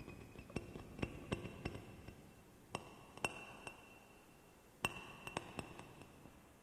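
Balalaika played very softly: a string of sparse light taps and plucks, two of which leave a high note ringing on.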